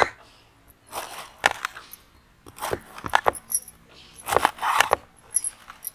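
Large kitchen knife chopping a peeled pineapple on a wooden cutting board: a series of irregular knocks and short cutting sounds.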